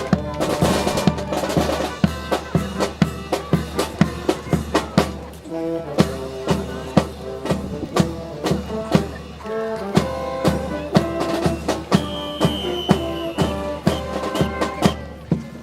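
Brass band playing a tune with held brass notes over a steady drum beat of snare and bass drum.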